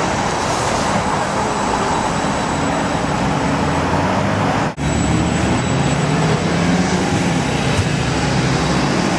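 A Hiroden 5000 series Green Mover low-floor tram, a Siemens Combino, runs with a steady rumble and hum mixed with street traffic. About halfway through, the sound breaks off for an instant at a cut, then resumes as the tram passes close by with a stronger low hum.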